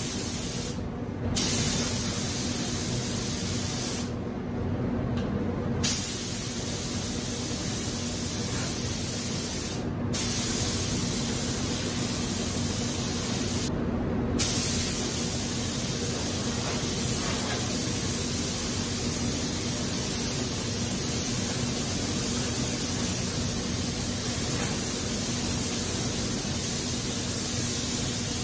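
Compressed-air paint spray gun hissing as it sprays paint, the hiss stopping briefly four times in the first half, as the trigger is let off between passes, then running on without a break. A steady low hum lies underneath.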